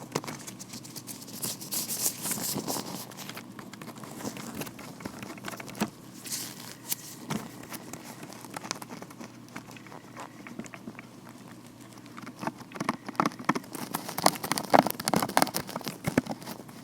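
Vinyl-latex gloves worked close to the microphone: a dense run of small crinkly crackles, rubs and taps, busiest near the start and again over the last few seconds.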